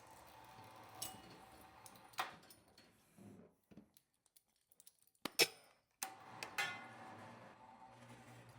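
Scattered metallic clinks and knocks of tools and parts being handled, over a faint steady hum. The sound drops out almost completely for about two seconds in the middle.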